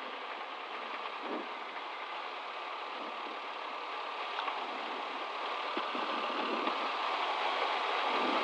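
Diamond DA20's four-cylinder engine and propeller running at low power during the landing rollout, heard from inside the cabin as a steady drone that grows slightly louder near the end.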